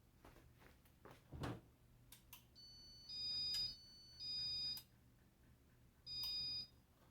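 Casablanca InteliTouch fan control beeping as it is keyed to reverse the fan and set speed 1: three short electronic beeps of steady pitch, with fainter tones between the first two, after a few light clicks.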